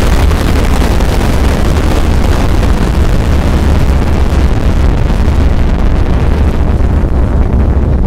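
Loud, sustained rumble of a nuclear explosion sound effect: a deep, steady low rumble under a dense rushing noise whose hiss slowly dies away.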